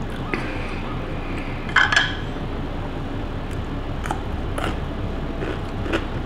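Eating at the table: chopsticks clicking against a ceramic bowl, with a short cluster of sharp clicks about two seconds in, then a few light crunchy ticks as a strip of pickled yellow radish is bitten.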